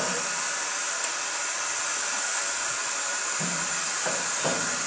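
Steady hiss of escaping steam from the standing steam locomotive No. 6201 Princess Elizabeth, an LMS Princess Royal class Pacific.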